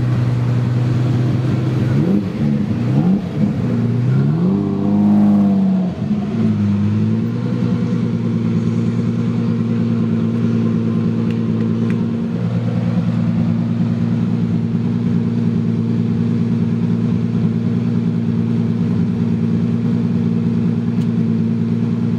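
Lamborghini Diablo VT 6.0's V12 with a Quicksilver exhaust, revved in a few short rises and falls of pitch during the first six or seven seconds, then idling steadily.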